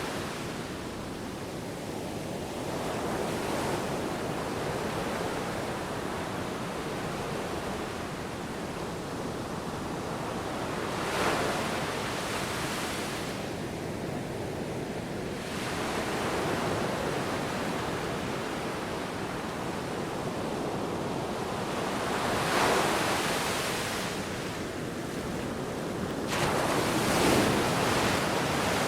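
Ocean waves breaking and washing in a continuous rush. Louder surges come every few seconds, about five of them, with the sound of wind throughout.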